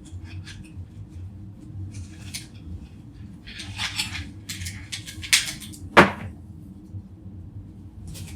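Cut cables and a cutting tool being handled: scattered rustling and small clicks over a steady low hum, with one sharp snap about six seconds in.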